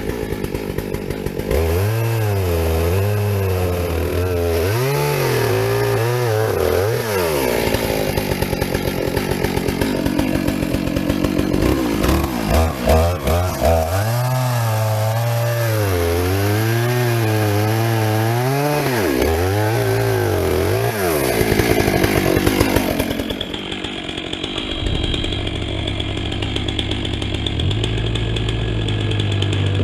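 Two-stroke chainsaw running and revving up and down repeatedly, its pitch rising and falling over and over; near the end it settles into a steadier, duller run.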